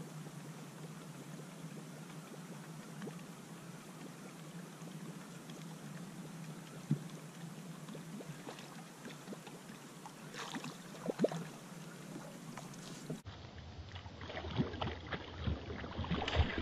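Boat-on-the-water ambience: a steady low hum with an even wash of water and wind noise and a few scattered clicks. After an abrupt cut about three-quarters of the way through, it turns to a quicker run of clicks and knocks.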